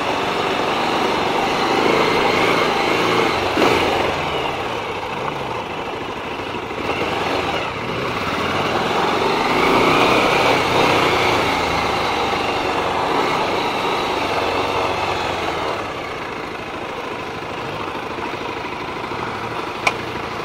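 Bajaj Pulsar 220 motorcycle's single-cylinder engine running while being ridden, mixed with wind and road noise.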